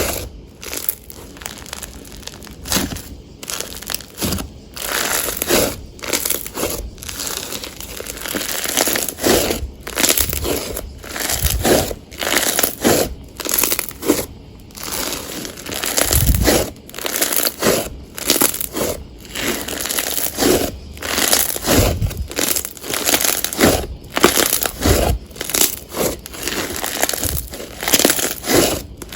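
Hands pressing, poking and stretching slime: a run of short, noisy presses at an uneven pace, about one or two a second, with brief pauses between them.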